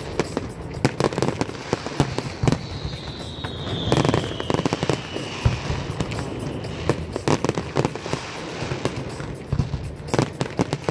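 Fireworks display in full barrage: shell bursts and crackling go off in rapid, overlapping succession without a break. A single whistle slides slowly downward for about three seconds, starting a couple of seconds in.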